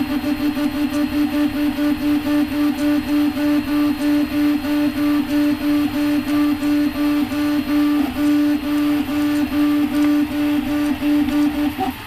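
Prusa i3 MK2S 3D printer's stepper motors printing, giving a steady whine at one pitch that pulses about three times a second as the print head moves back and forth.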